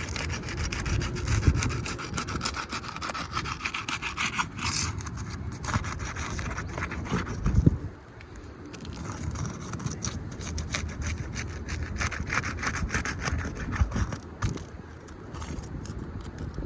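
Worn, degranulated asphalt shingles being pried loose by hand with a flat roofing tool: continuous scraping and rubbing with many small crackles and clicks as the sealed tabs break free and the tool slides under the shingles.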